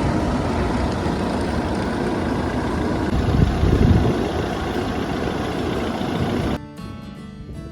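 A large engine running steadily under a loud rushing noise. It cuts off abruptly about six and a half seconds in, and music takes over.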